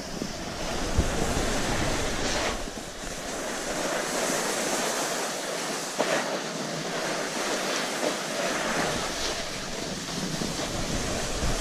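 Wind rushing over the camera microphone and skis hissing and scraping over packed snow on a downhill run. A few sharp knocks cut through, the loudest about a second in and about six seconds in.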